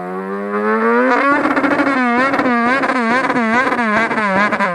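Beatboxer's voice imitating a motorcycle engine: a buzzing engine-like note that climbs slowly, gets louder about a second in, then rises and falls in regular revs, about one and a half a second.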